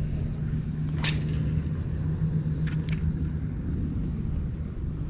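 A low rumble with a steady low hum that fades out about four seconds in, and a few short sharp clicks.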